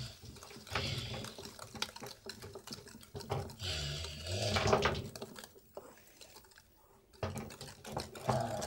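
Wire whisk beating eggs and sugar in a glass bowl: quick clicking of the wires against the glass over a wet sloshing. It falls quiet for a moment a little past the middle, then starts again.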